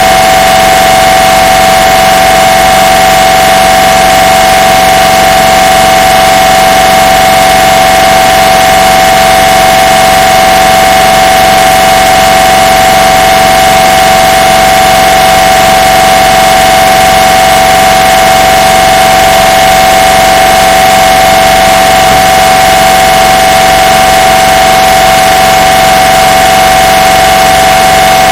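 MRI scanner sounding one continuous steady tone over a heavy hiss, unchanging throughout. It is boosted to extreme loudness, right at full scale.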